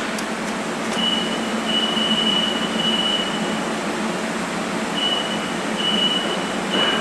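LarsLap Model C1 valve grinder running with a steady hum while grinding the gasket seating face in a valve bore, with a thin high squeal from the tool on the metal that sets in about a second in, breaks off, and returns in short stretches near the end.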